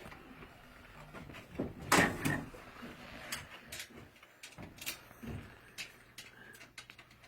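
Knocks, clicks and rattles of bed-frame parts being handled during assembly, with one louder clatter about two seconds in.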